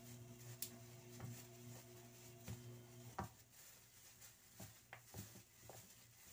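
Faint crinkling and soft clicks of a plastic-gloved hand tossing raw chicken feet in cornstarch on a plate. Under it runs a low steady hum that cuts out about halfway through.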